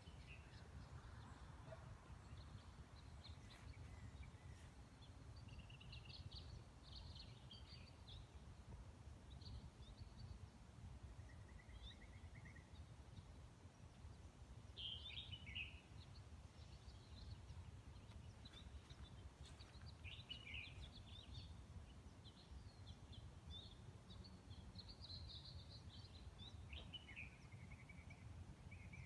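Near silence: faint outdoor ambience of scattered bird chirps and calls over a low steady hum.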